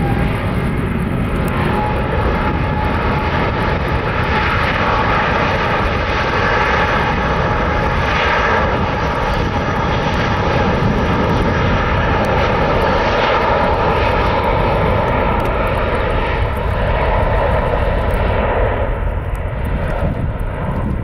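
Airbus A330-900neo's twin Rolls-Royce Trent 7000 turbofans at takeoff power: a steady, loud jet roar with a whining fan tone. It carries through the takeoff roll and liftoff, and the high end thins slightly near the end.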